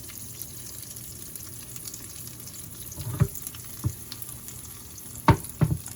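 Oyster omelette, egg and oysters, frying in oil in a pan with a steady sizzle. A few short knocks in the second half.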